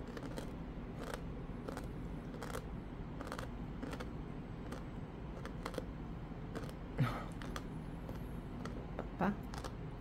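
Scattered small clicks and ticks as a kitten is fed by hand from chopsticks, with two short louder sounds about seven and nine seconds in.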